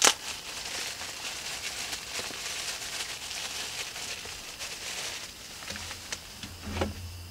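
A thin plastic bag rustling and crinkling as a bag of cooked rice is opened by hand and emptied onto a paper wrapper, with a sharp snap right at the start.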